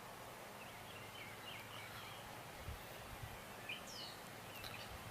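Faint outdoor background noise with birds chirping in short scattered calls, and a couple of faint low bumps about halfway through.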